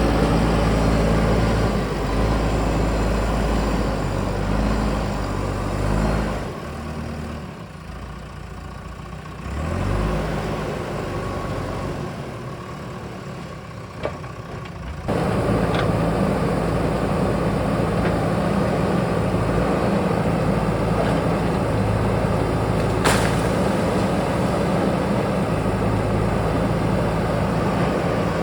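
JCB backhoe loader's diesel engine running, dropping quieter for several seconds before coming back abruptly at a steady, louder level about halfway through; a single sharp click near the end.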